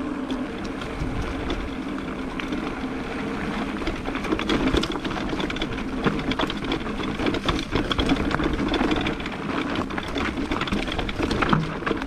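Electric mountain bike ridden fast over a rough, rocky trail: a steady mechanical whirr from the bike's drivetrain under a constant clatter of the bike rattling and the tyres striking rocks, growing rougher about four seconds in.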